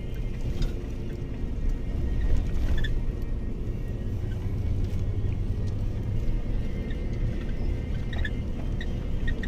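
A motor vehicle's engine running steadily while on the move, with a heavy low road rumble.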